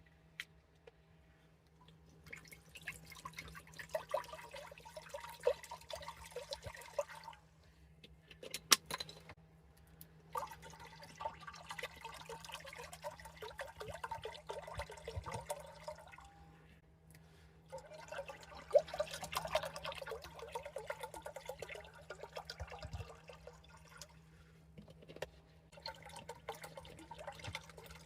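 Water being poured into a container in several long pours, with a couple of sharp clinks between the first and second pour.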